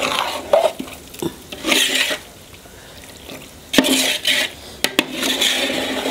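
Metal spoon stirring and scraping through thick chicken-and-masala mix in a large metal pot: several scraping strokes, the longest near the end, with sharp clinks of the spoon against the pot between them.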